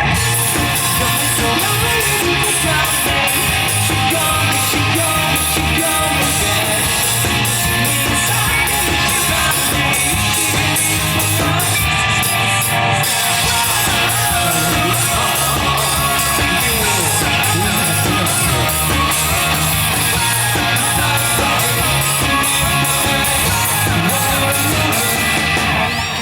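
Live rock band playing loudly and without a break, electric guitar prominent over bass and drums.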